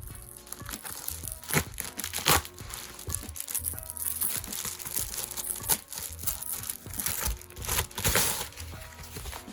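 Packaging wrappers crinkling and rustling in irregular crackles as they are handled, with faint background music.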